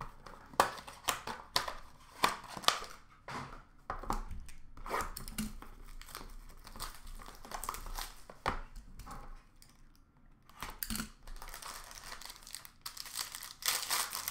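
A hockey card pack's wrapper being crinkled and torn open by hand, with quick rustles and clicks of handling throughout and a denser run of crinkling near the end.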